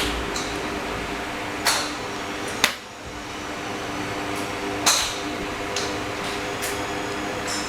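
Golf club heads striking balls off tees: a few sharp clicks, the loudest about two and a half seconds in, over a steady fan-like hum.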